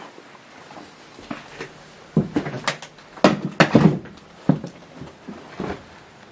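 Irregular knocks and scuffs of a person stepping through a doorway and over debris. They come in a run from about two seconds in, loudest in the middle.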